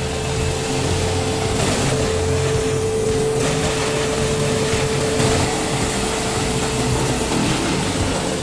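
Heavy machine engine running steadily under load, with a constant whine over a low drone.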